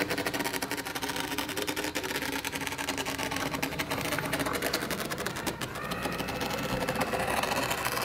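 Sandscript sand drawing machine running at its top speed: a steady mechanical whir with a fast, dense rattle. The owner finds it noisy at this speed.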